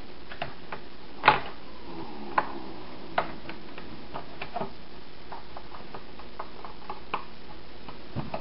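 Irregular small plastic clicks and snaps from the hard plastic shell of an Otterbox Defender case being worked apart by hand, its clip-like latches being unsnapped. The loudest click comes about a second in, over a steady hiss.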